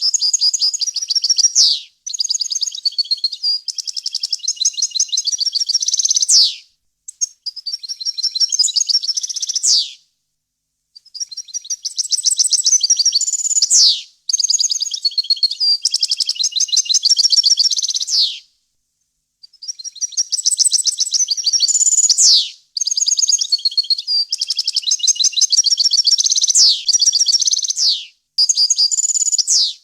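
European goldfinch singing in a string of fast twittering phrases of trills and chirps, each a few seconds long, with brief pauses between them. Many phrases end in a quick falling note.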